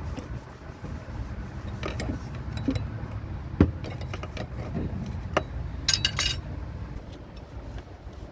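Metal tools and parts clinking and tapping during work in a car's engine bay, with one sharp knock about three and a half seconds in and a brief rattle near six seconds, over a steady low rumble.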